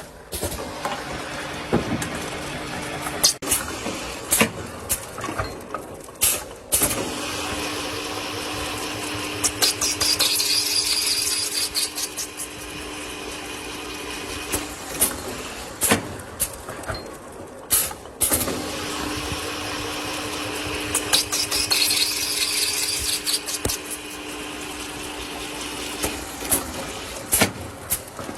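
Pipe cutting machine cutting large-diameter rigid plastic pipe in two cycles. Each time, a motor hum and cutting hiss run for about eight seconds, with the hiss swelling midway through. Sharp knocks and clanks from the machine come between and around the cuts.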